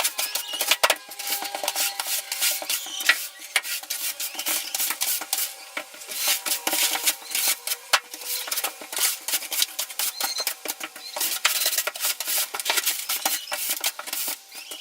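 Push broom bristles scraping dust and chicken droppings across a plywood floor in quick, repeated strokes.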